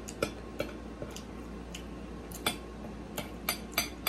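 Close-miked eating sounds: a metal fork clicking and scraping against a ceramic plate in irregular taps, coming faster in the last second or so, mixed with the mouth sounds of chewing.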